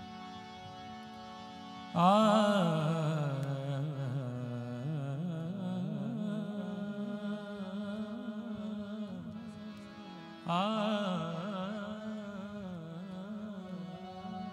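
Male voice singing a wordless, ornamented alap over steady held accompaniment notes, entering suddenly about two seconds in and again with a fresh phrase near the end, the pitch wavering with vibrato.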